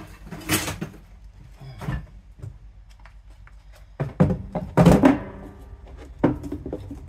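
A dishwasher drain pump on its electric motor being set down and turned over on a wooden workbench: a few separate knocks and clunks, the loudest cluster about four to five seconds in.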